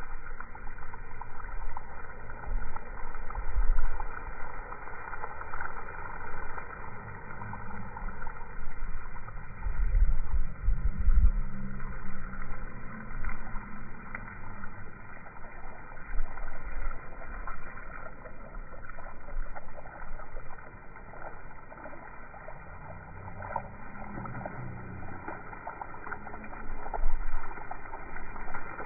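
Garden hose water spraying onto a cinder-block wall and grass, slowed down: a steady, dull rushing noise with uneven low rumbles.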